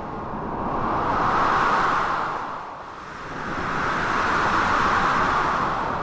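Storm ambience of strong wind and sea surf: a steady rushing noise that swells up and dies back twice, in slow gusts a few seconds long.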